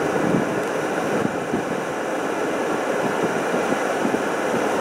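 Steady noise of a car heard from inside its cabin with the engine running.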